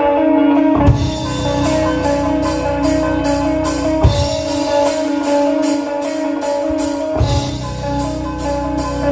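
A live band playing: a sustained chord rings, then about a second in the drum kit comes in with a heavy low hit and even cymbal strokes about three a second, with more heavy hits every three seconds or so.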